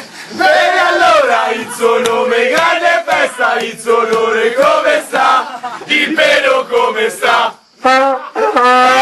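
A group of men chanting a drinking chant together, loud and rhythmic, urging someone on as he drinks. The chant breaks off briefly about three quarters of the way through, then resumes with rising shouts.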